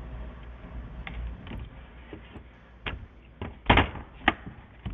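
Scattered taps and knocks from hands handling a tablet and the camera on a desk. They start faint and grow louder, the loudest being a close pair of knocks about three-quarters of the way through and another just after.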